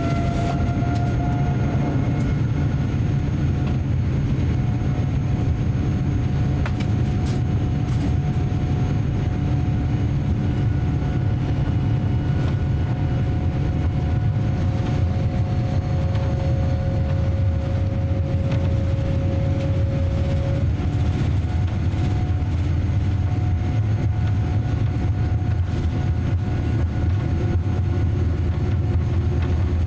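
Cabin noise inside a Boeing 787-10 taxiing: a steady low rumble of the engines at low thrust, with steady whining tones over it. One whine has just finished rising in pitch at the start, and a second tone cuts off about two-thirds of the way through.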